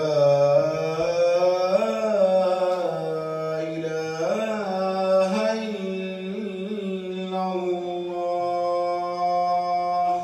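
A man chanting the Islamic call to prayer (adhan) into a microphone: one long, melismatic phrase, the voice holding notes and sliding between them, stopping near the end.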